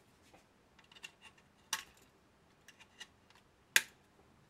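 Scattered light clicks and taps from a circuit board being handled and turned over in the hands, with a sharper click near the middle and the loudest one near the end.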